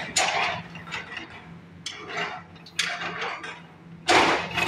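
Building demolition by excavator: irregular crashes and clatter of breaking concrete and metal debris falling, four main hits, the loudest about four seconds in, over the steady low hum of the machine's engine.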